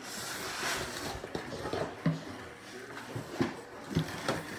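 Cardboard box and molded pulp packaging insert being handled and pulled out, then a plastic bag rustling under the hands, with a few short sharp scrapes or knocks along the way.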